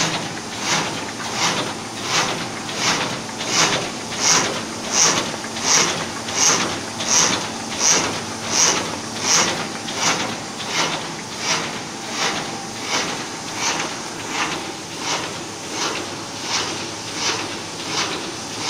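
XMQ 720 automatic flatbed die-cutting machine running, its cutting cycle repeating as an even, regular stroke about every three-quarters of a second.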